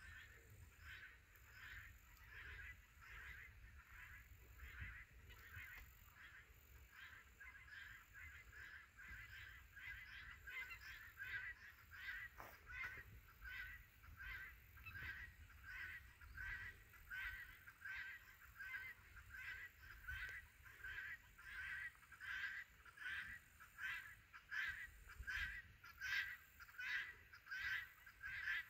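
Faint repeated animal calls, most likely a bird's, coming in a steady series of about one and a half calls a second and growing louder toward the end.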